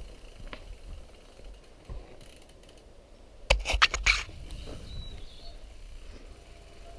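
Mountain bike rolling down a dirt singletrack: a low rumble of tyres on dirt with light mechanical clicking and rattling from the bike, and a burst of loud clattering about three and a half seconds in as it goes over rough ground.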